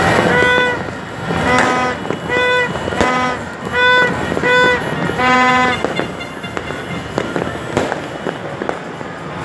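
Distant New Year fireworks popping and crackling across the city, with several short horn blasts at one steady pitch in the first six seconds and only crackle and scattered pops after that.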